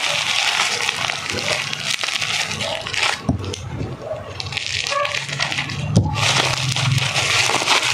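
Crinkly plastic packaging rustling and crackling as it is handled and opened by hand, with a sharp click about three seconds in and another about six seconds in.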